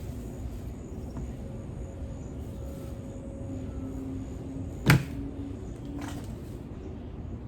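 Steady low outdoor background hum with one sharp knock about five seconds in, followed by a fainter one about a second later.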